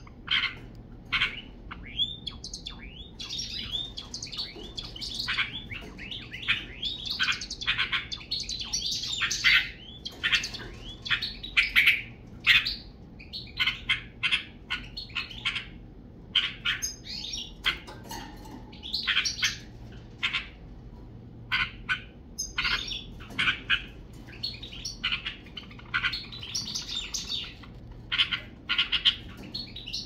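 A group of sparrows chirping, with many short chirps in quick runs and a few brief pauses.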